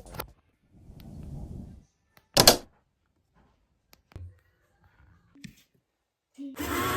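A few knocks and clicks of handling, the loudest a sharp knock about a third of the way in; then near the end a small LEGO electric motor starts and runs steadily with an even hum.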